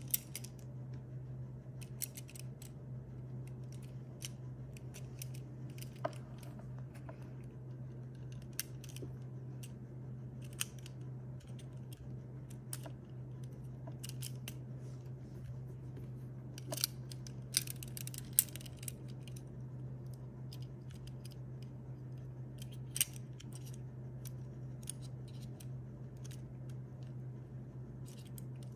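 Small plastic clicks and taps of LEGO Technic pieces being handled and fitted together, scattered irregularly, with a cluster of sharper clicks a little past halfway. A steady low hum runs underneath.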